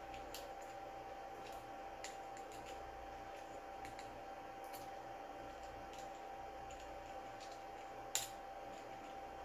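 Faint, irregular small clicks as a hand deburring tool picks and scrapes at a 3D-printed plastic ball bearing, with one sharper click near the end, over a steady faint hum.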